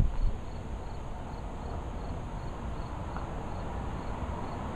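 Insects chirping in an even rhythm, about three short high chirps a second, over a steady low background rumble.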